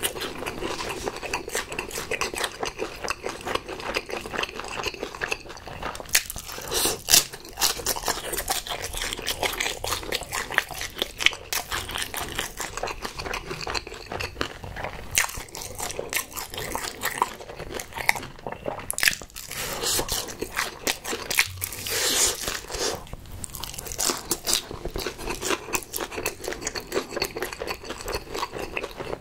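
Close-miked eating: a person biting pieces of sauce-glazed chicken off a skewer and chewing them, a continuous run of small clicks and crunches.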